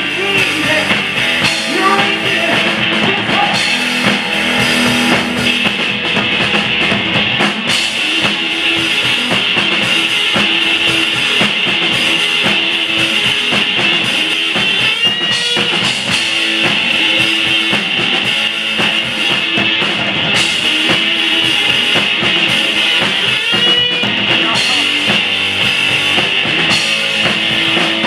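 Live rock band, electric guitar and drum kit, playing loud and steady with no singing. Two short rising slides stand out, about halfway through and again near the end.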